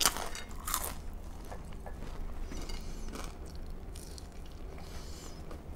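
Close-miked eating sounds: soft chewing and mouth clicks as food is chewed, with a few short smacks over a faint steady low hum.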